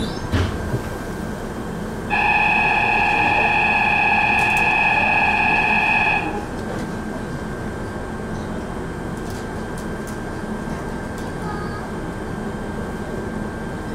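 Ohmi Railway 800 series electric train standing at the platform with a steady electrical hum. About two seconds in, a loud, steady electronic tone sounds for about four seconds, then stops abruptly.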